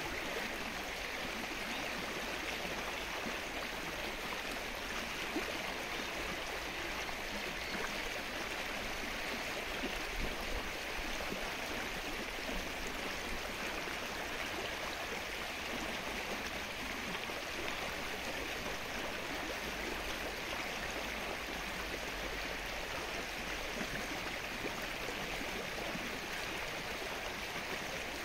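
Steady rain falling on the open surface of a flooded lake: an even, unbroken patter of many small drops on water.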